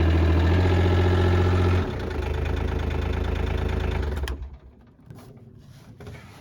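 Side-by-side UTV engine running, loud at first, then easing to a lower steady run about two seconds in. It shuts off just after four seconds.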